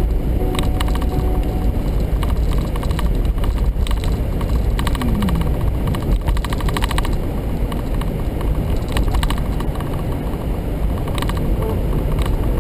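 Steady road and engine rumble inside an SUV's cabin at highway speed, with a few brief knocks.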